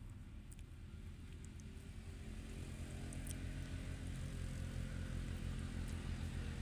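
A distant engine droning steadily, growing louder from about two and a half seconds in.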